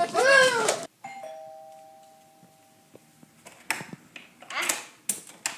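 Two-tone ding-dong doorbell chime about a second in, its two notes fading out over about two seconds. A few short knocks and rattles follow near the end.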